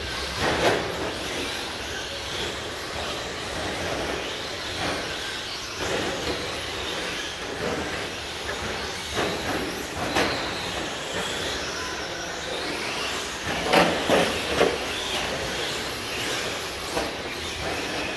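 Radio-controlled short course trucks racing: a steady wash of motor and tyre noise, broken by several sharp knocks, the loudest a quick cluster about fourteen seconds in.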